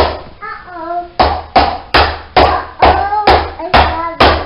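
Loud, sharp knocks repeating evenly about two to three times a second, each ringing out briefly, with a short voice calling out between them twice.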